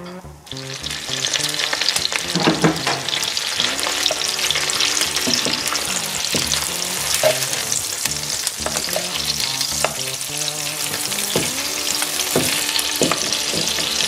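Bratwursts frying in a pan of hot plant-based cooking fat: a steady sizzle with sharp crackles and pops, coming in about half a second in.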